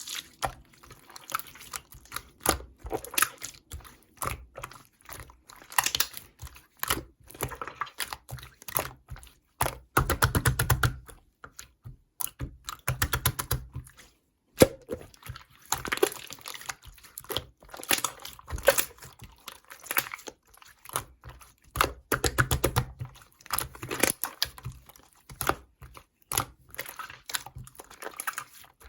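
Slime being squeezed, pressed and poked by hand, giving a dense run of irregular clicks and small pops, with brief lulls now and then.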